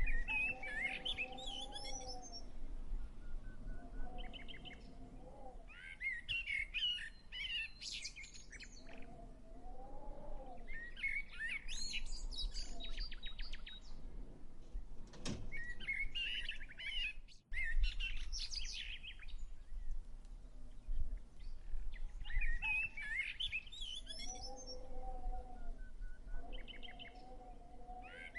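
Songbirds singing in repeated short bursts of quick chirping phrases every few seconds, alternating with a lower, steadier held call, over a faint low background hum.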